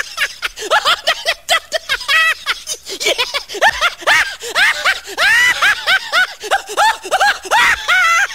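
High-pitched laughter in a rapid string of short bursts, each syllable rising and falling in pitch: a meme laugh sound effect.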